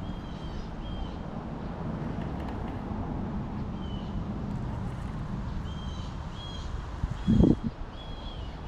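A bird repeating a short high chirp every second or so over a steady low rumble of wind on the microphone, with one brief louder gust about seven seconds in.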